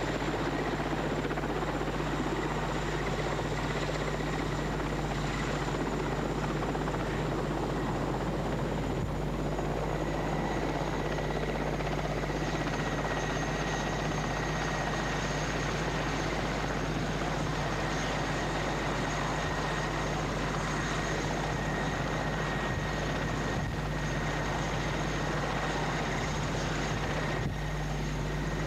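Mi-8-type transport helicopters running on the ground: steady rotor and turbine noise with a high turbine whine that eases slightly in pitch about ten seconds in.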